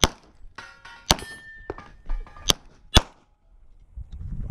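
Four shots from a Glock 17 9mm pistol, two close together near the end. The first two are followed by metallic ringing.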